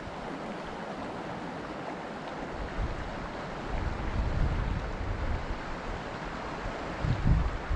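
River water rushing steadily over stones, with wind buffeting the microphone in low gusts from about halfway on.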